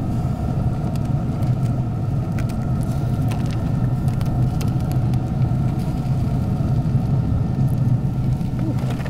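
Steady low machine rumble with a constant hum, and a few light clicks of knives against the metal grill grate.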